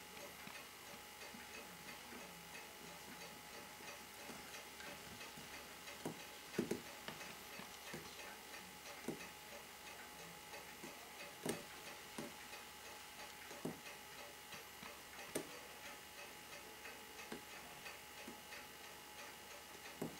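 Mechanical watch movement ticking in a quick, steady beat of several ticks a second, with a few sharper clicks of a metal tool touching the movement.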